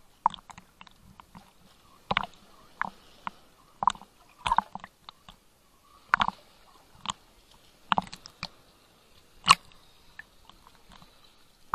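Small waves slapping and sloshing against a waterproof action camera's housing at the waterline: a dozen or so irregular short knocks and splashes, the loudest about nine and a half seconds in.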